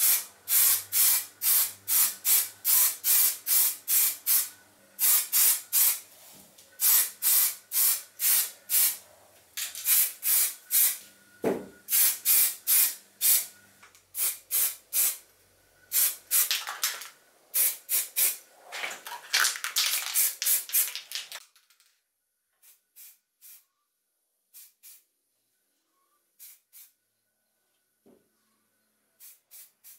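Aerosol spray can of primer fired in short hissing puffs, about two a second, coating the metal body of an oil can. After about three-quarters of the way through, the puffs come fewer and quieter.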